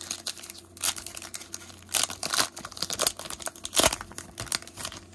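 Foil wrapper of a trading-card pack being torn open and pulled apart by hand: irregular crinkling and tearing crackles, the loudest a little before the end.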